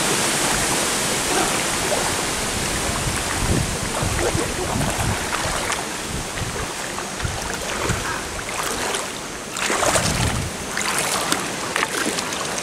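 Shallow stream water splashing and sloshing as someone wades through it, over a steady rushing noise, with a few louder splashes near the end.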